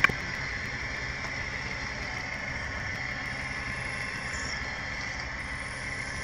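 Wood lathe running steadily with an even motor hum. There is a short click at the start, and a faint high whine comes and goes twice.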